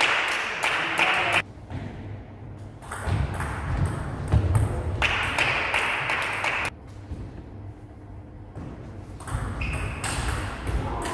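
Table tennis rallies: the celluloid-type ball clicking quickly off the bats, one faced with frictionless anti-spin rubber, and off the table, each knock ringing in a gym hall. There are three runs of quick knocks with pauses of a second or two between points.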